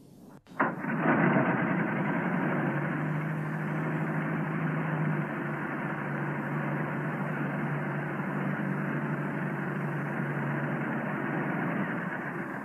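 Engine of an early open motor car starts suddenly about half a second in and runs steadily.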